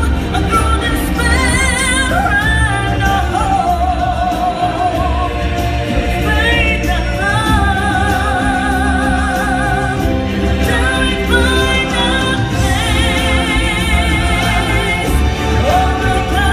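Live stage-show music: singers holding long notes with wide vibrato over a band track with a pulsing bass beat.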